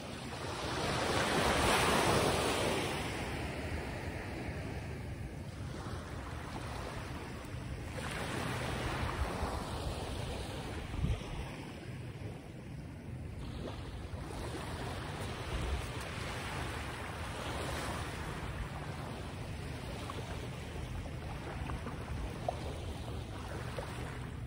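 Waves washing in, swelling and fading several times with the loudest surge about two seconds in, over a low rumble of wind on the microphone.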